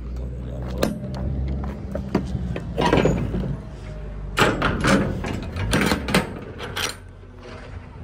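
Metal rear-door hardware of a semi trailer clanking and knocking several times as the door is handled and swung open, over a low steady engine hum that fades about halfway through.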